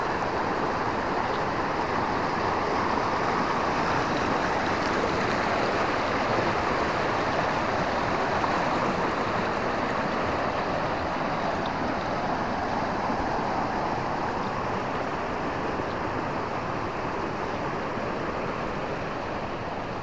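Mountain river rushing over rocks, a steady, even rush of water.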